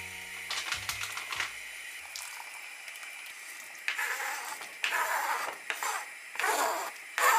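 Water boiling in a saucepan with a steady hiss. From about four seconds in, diced zucchini and other vegetables are scraped off a plastic cutting board with a wooden spoon and drop into the pot in several loud, splashing bursts.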